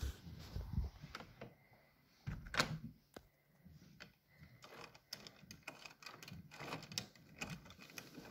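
A bunch of keys jingling and clicking against a door lock as a key is fitted into the cylinder, with a louder knock about two and a half seconds in and a quick run of small metallic clicks through the second half.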